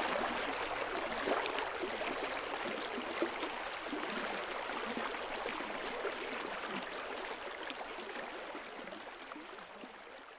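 Running water of a small stream, a steady rushing with fine splashing, fading out slowly.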